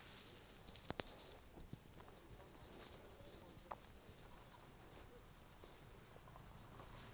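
Faint outdoor ambience of insects chirping in a high, flickering band, with a few soft clicks, the clearest about a second in.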